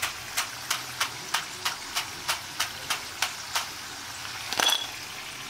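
Crisp deep-fried garadu (yam) cubes clicking and rattling as they are shaken, about three light clicks a second with a bigger clatter near the end, over a faint hiss of frying oil. The dry, hollow rattle is the sign that the pieces have fried through and gone crisp, with their moisture cooked out.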